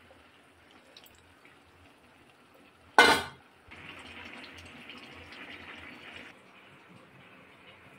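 Liquid in a cooking pot: a sudden loud splash about three seconds in, then a steady watery hiss for about two and a half seconds that fades to a fainter hiss.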